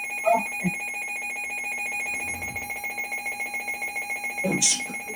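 Weather alert radio's built-in electronic alarm sounding: a high-pitched buzzer-like tone that is steady at first, then pulses rapidly, about nine beats a second, from about two seconds in. It signals that the radio has picked up a severe weather warning.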